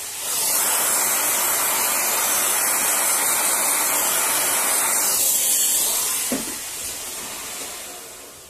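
Vacuum cleaner running with its hose held over an opened laptop's mainboard, a loud steady hiss. It comes up right at the start and dies away over the last two to three seconds.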